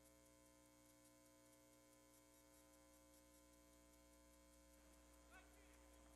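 Near silence: a faint steady electrical hum with faint regular ticking.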